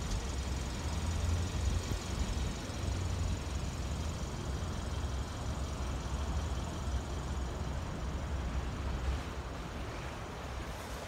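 Strong winter wind gusting across the microphone: a steady low rumble that swells and eases with the gusts, over a faint rushing hiss.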